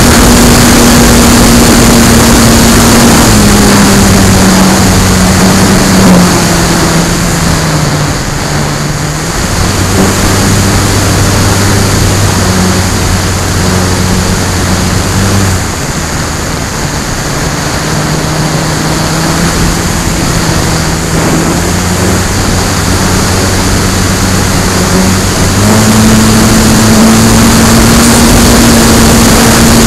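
Electric motor and propeller of an FMS Bf-109 RC model warplane in flight, heard from a camera on board, over steady wind noise. The tone steps down in pitch a few seconds in, stays lower through the middle as the throttle is eased back, and rises again near the end.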